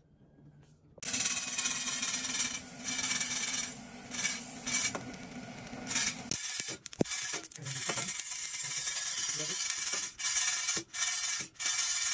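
Coffee beans rattling and scraping around a metal frying pan as they are shaken and stirred over a gas flame while roasting. It starts about a second in, with a few brief breaks.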